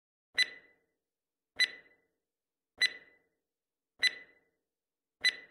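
Quiz countdown-timer sound effect: five short ticks, each with a brief ringing beep, evenly spaced about 1.2 seconds apart, counting down the time to answer.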